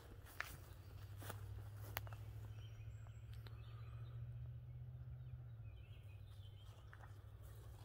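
Footsteps through grass and leaf litter on a forest trail: a few steps at first, then a quieter pause over a low steady rumble with a few faint bird chirps, and steps again near the end.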